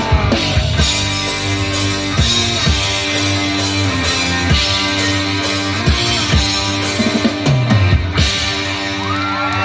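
Live rock band playing the instrumental close of a song, with drum kit and electric guitar.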